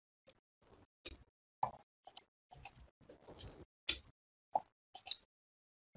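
About a dozen irregular, sharp clicks and taps from a computer mouse and keyboard, with silence between them.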